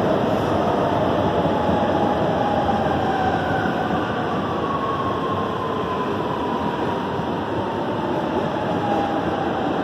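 Electric metro train moving along a station platform, its cars rumbling past steadily, with a motor whine that slowly falls in pitch.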